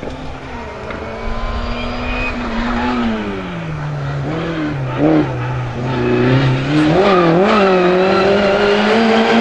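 Peugeot 106 slalom race car's engine revving up and down as it threads through a cone chicane, growing louder as it approaches. The revs drop, then climb with a couple of quick throttle blips about seven seconds in and hold high, with a brief sharp burst around five seconds in.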